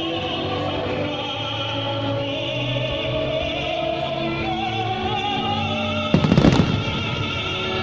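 Operatic orchestral music playing for a pyromusical fireworks show, and a little over six seconds in a quick cluster of firework bangs.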